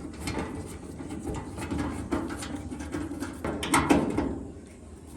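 A few sharp clicks and knocks, the loudest a cluster a little before the end, over a low steady hum.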